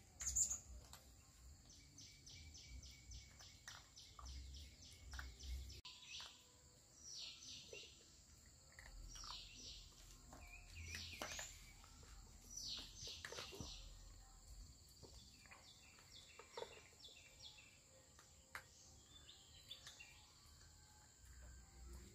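Faint birdsong: runs of quick, high chirps, about three or four a second, repeated in short bouts, over a steady thin high-pitched hum.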